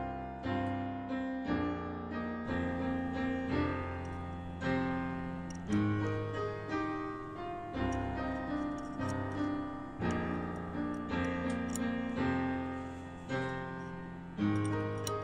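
Background piano music, notes and chords struck about once a second and left to ring out.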